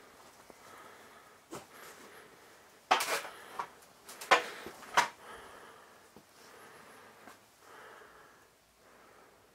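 A few rustling crunches and knocks from someone moving through clutter of cardboard, plastic and debris, loudest in a cluster between about three and five seconds in.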